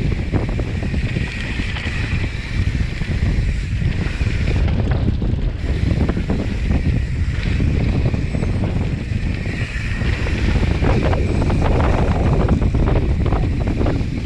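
Wind buffeting the rider-mounted camera's microphone as a mountain bike rolls fast down a dirt singletrack, mixed with tyre noise on the dirt and the bike rattling over bumps, the rattling busier in the second half.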